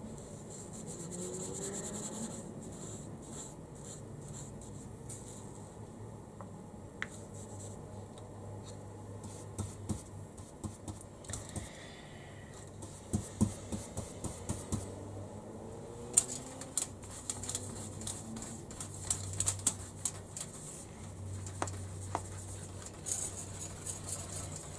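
Paintbrush scratching and dabbing as paint is worked into the riverbed of a model railway diorama, with scattered light taps and clicks that come thicker in the second half.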